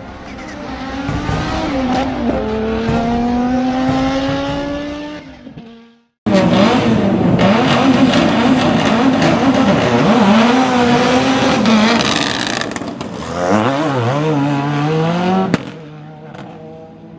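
Ford Escort RS WRC rally car's turbocharged four-cylinder engine at full throttle, its pitch climbing through the gears with an upshift about two seconds in, then fading as the car drives away. After a cut, the car is heard close and loud, revs rising and falling repeatedly, then pulling up through a gear before a cut to a quieter stretch.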